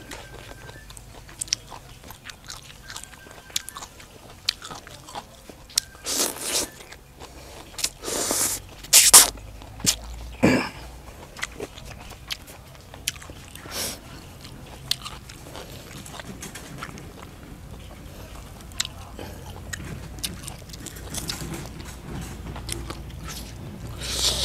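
Close-up crunching and chewing of raw vegetables such as long beans with a spicy noodle salad: many small wet clicks between bites and several louder crunches, the loudest about nine seconds in.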